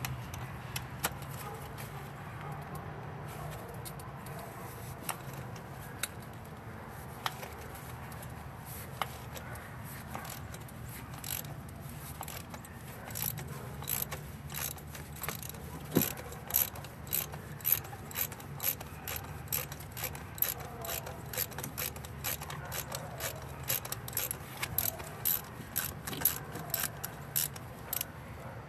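Ratchet wrench with a spark-plug socket clicking as a spark plug is loosened and backed out of a 2007 Toyota Yaris's four-cylinder engine. The clicks are sparse at first and come in steady runs from about ten seconds in, over a steady low hum.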